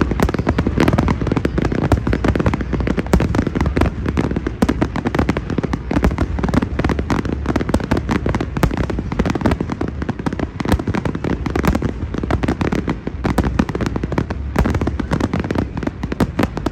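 Fireworks going off in a continuous barrage, a dense string of bangs and crackles with a deep rumble underneath.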